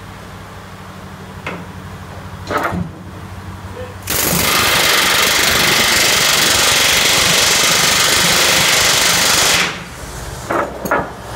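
Pneumatic riveting hammer closing a red-hot rivet in a narrowboat's metal hull plating, hot riveting. It hammers continuously and very fast for about five and a half seconds, starting about four seconds in. Before and after, a steady low hum with a few separate knocks.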